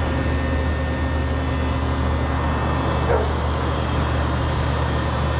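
Blower feeding air through the tuyere of a charcoal forge, running with a steady hum as the forge heats a steel rod. A brief short squeak sounds about three seconds in.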